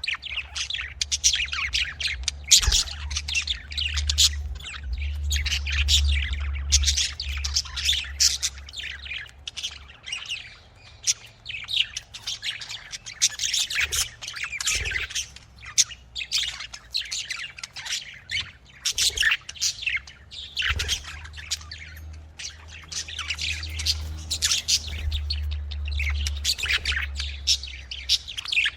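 Budgies (budgerigars) chirping and warbling in a rapid, continuous chatter of high, squawky notes. A low hum rises under them during the first third and again near the end.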